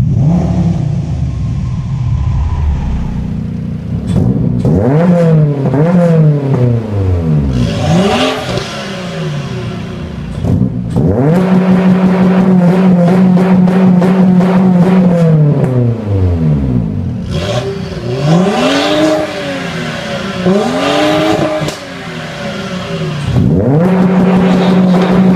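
For the first few seconds, an Audi S6 5.2 V10 with a Milltek non-resonated exhaust runs at low revs, heard from inside the cabin. Then a stationary sports car's engine is revved repeatedly: quick blips that rise and fall, and two long stretches held steady at high revs, about 11 to 16 seconds in and again near the end.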